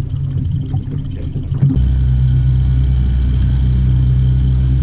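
Fishing boat's 200-horsepower outboard motor running under way, a loud steady low drone that sets in suddenly about two seconds in.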